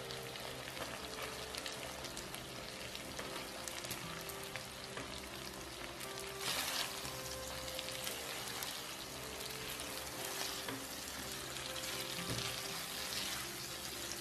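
Shrimp in garlic sauce sizzling in a frying pan while cooked spaghetti is tossed through it with tongs, with a louder flare of sizzle about six and a half seconds in.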